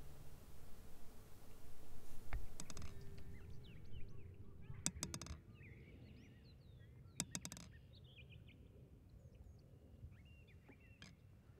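Outdoor ambience of small birds chirping in quick, rising and falling calls over a low background rumble that drops away after the first few seconds, with a few short, sharp rattling clicks.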